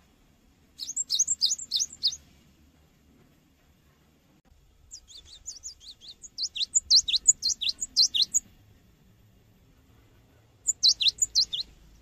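Cinereous tit (gelatik batu) singing in three bursts of rapid, high, repeated down-slurred notes: one about a second in, a longer run from about five to eight seconds, and a short burst near the end.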